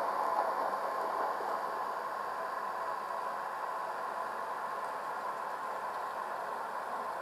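Recorded 1938 Tube Stock electric train sound played back by a model-railway DCC sound decoder: a steady, even train noise that eases off slightly in level.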